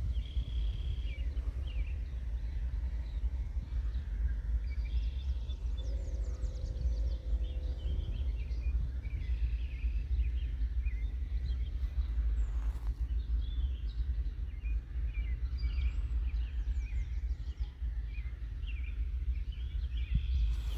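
Wild birds chirping and calling here and there among reeds by the water, over a steady low rumble. A lower, buzzy pitched call sounds for about two seconds, starting around six seconds in.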